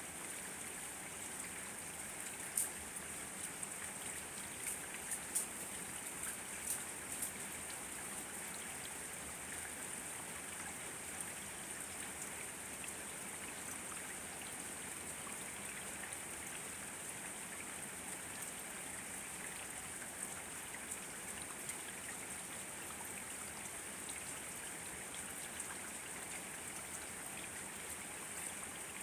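Steady rain falling as an even hiss, with scattered sharper drip ticks in the first several seconds.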